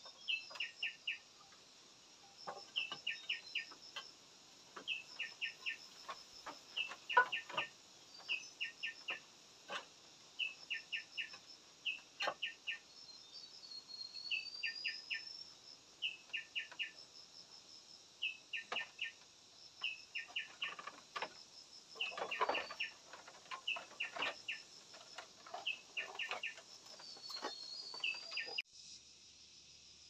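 Birds chirping in quick groups of three to five notes about once a second over a steady high insect buzz, with a few rising whistles. Scattered sharp knocks and clinks of clay roof tiles being set on bamboo battens, the loudest about seven seconds in and a cluster a little after twenty seconds.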